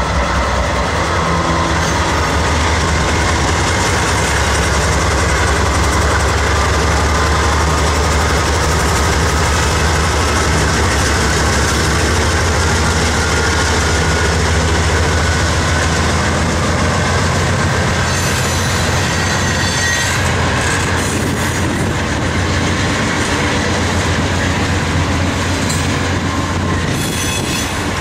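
A Canadian Pacific freight train passing close: the GE AC4400CW diesel locomotive's engine drones low and steady, and the freight cars roll by with steel wheels clattering on the rails and a thin wheel squeal.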